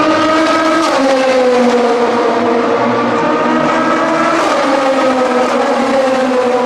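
Oreca 07 LMP2 prototypes with the Gibson 4.2-litre naturally aspirated V8 running at racing speed past the grandstand. The high engine note drops about a second in as a car goes by, then rises and falls again around four seconds in.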